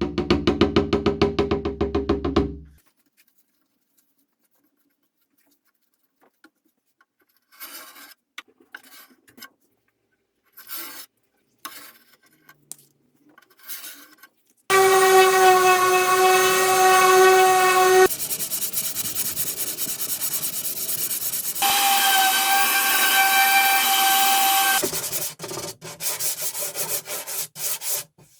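Workshop restoration sounds on an old wooden side table, in short separate stretches: a fast pulsing tool at first, then short bursts of hand rubbing or scraping on wood, then a power tool running loudly with a steady whine, in two long stretches broken by rougher noise.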